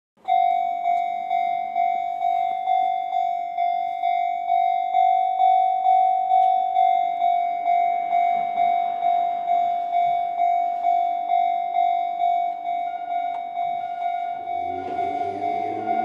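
Japanese level-crossing alarm bell ringing its "kan-kan", an electronic bell tone struck about twice a second. About fifteen seconds in, an approaching Enoden train joins it with a rising motor hum.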